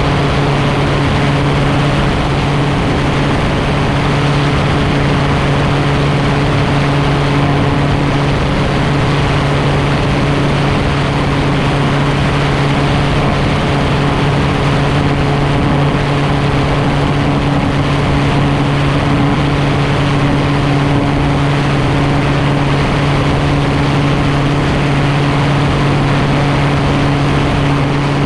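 Gyroplane engine and propeller running steadily at low power, one even unchanging note.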